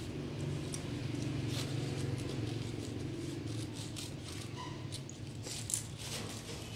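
Brief rustles and crinkles of gift-wrapping paper, mesh and satin ribbon being handled, over a steady low hum, with one sharper tick near the end.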